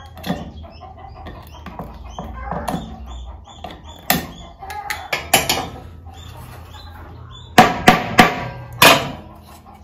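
Wiring a wooden beehive frame: small clicks and scrapes of pliers working the frame wire, a few sharper knocks in the middle, then four loud hammer strikes on the wooden frame near the end.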